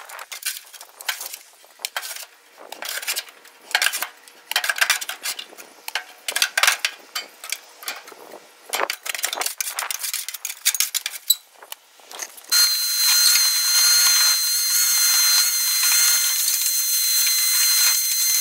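Metal scraper scraping rust flakes and debris off the rusted sheet-metal bottom of a gas grill in quick, irregular strokes. About twelve seconds in, a shop vac switches on and runs steadily with a high whine, sucking up the loose debris.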